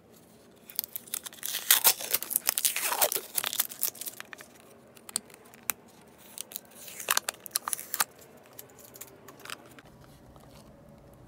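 Packaging being torn and crinkled open by hand in two spells of crackling, with a few scattered crinkles between.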